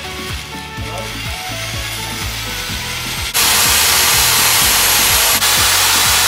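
Corded electric drill spinning a paddle mixer in a gallon can of truck bed coating. About halfway through it runs up to full speed and gets much louder, with a momentary break a couple of seconds later.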